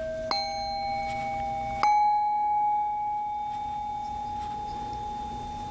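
Metal singing bowls struck twice with a wooden mallet, once just after the start and again nearly two seconds in. Each strike rings on in a long, slowly fading tone, and the second strike is the louder.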